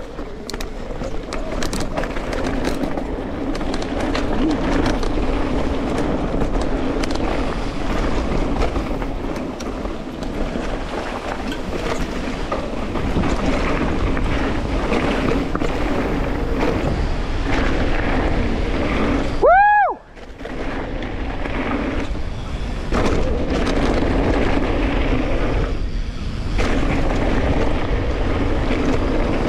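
Wind rushing over an action camera's microphone while an electric mountain bike is ridden down a dirt trail, a steady rumbling noise. About two-thirds of the way through, a brief squeal rises and falls in pitch, then the noise drops away for a moment.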